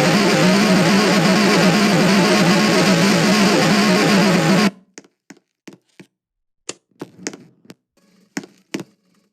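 Loud distorted, electric-guitar-like music that cuts off abruptly a little over halfway through, followed by a scattering of short clicks and knocks.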